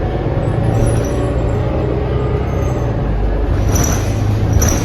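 Cabin noise aboard a New Flyer XD40 diesel city bus under way: a steady low engine and drivetrain drone with road noise. Two brief high-pitched squeaks come near the end.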